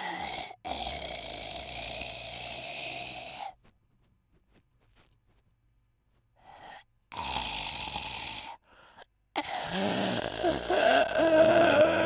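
A man snoring heavily in drawn-out, groaning snores: one long snore, a few seconds of silence, a short snore, then a louder, wavering snore near the end.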